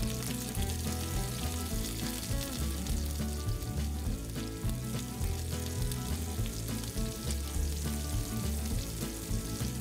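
Whole shrimp pan-frying in plenty of hot oil, a steady sizzle throughout, with background music underneath.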